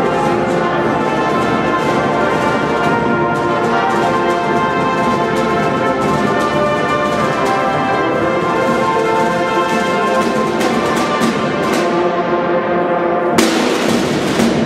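Brass-and-drum marching band playing a slow tune in held notes, with side drums beating time under it. About a second before the end the percussion swells into a loud crash.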